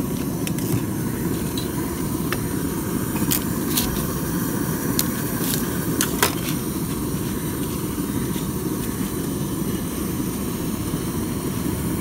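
Steel spoons and utensils clinking a few times against steel containers, mostly between about three and six and a half seconds in, over a steady low rumble of background noise.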